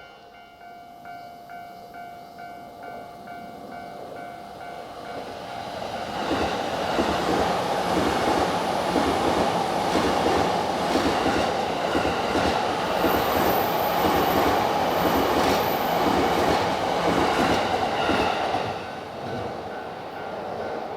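A level-crossing alarm rings with an even, repeating beat. About six seconds in, a train passes close by, with a steady clickety-clack of wheels over rail joints, and the sound fades near the end.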